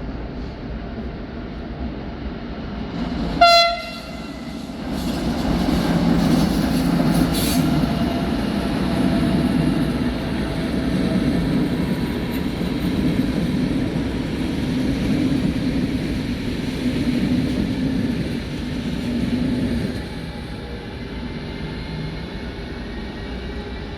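Train sounding one short horn blast about three seconds in, then rumbling past for some fifteen seconds before the sound eases off.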